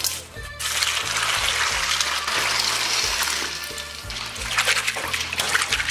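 Water running into a stainless steel basin of dried speckled beans, a steady hiss, then choppier sloshing and splashing near the end as the beans are washed in it. Background music plays underneath.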